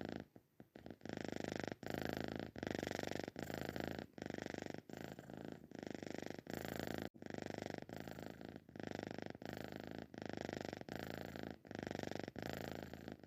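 Cat snoring: a continuous rattling buzz that breaks briefly with each breath, less than a second apart, after a quiet first second.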